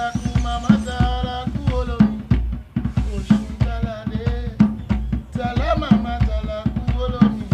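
Music with a steady drum-kit beat, kick and snare hits, under a wavering melodic line.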